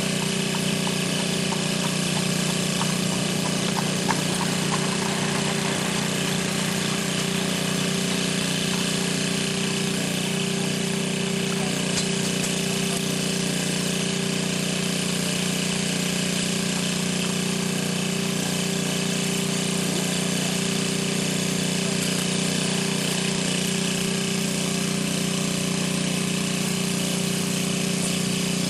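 Steady mechanical drone with hiss that does not change throughout.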